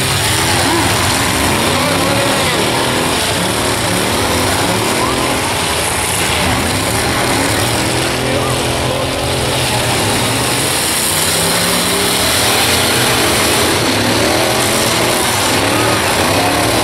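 Engines of several demolition derby pickup trucks revving, rising and falling in pitch over a continuous dense roar.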